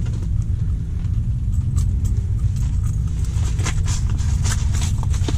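A steady low rumble throughout, with a few small clicks and clinks of pliers working a hook out of a walleye's mouth.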